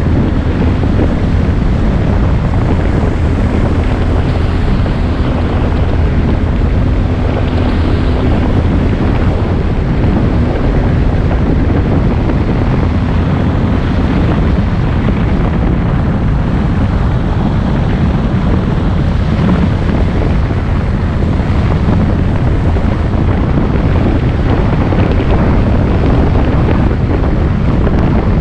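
Wind rushing over the microphone of a camera on a moving motorbike, loud and steady, with a faint steady hum underneath in the first half.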